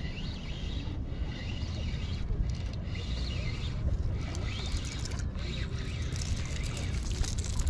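Wind rumbling on the microphone, with faint high chirps in the background.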